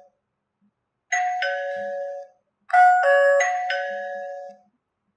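Electronic two-note ding-dong doorbell chime from a smart video doorbell being rung. It sounds once about a second in, then twice more near the three-second mark, the second ding-dong overlapping the first.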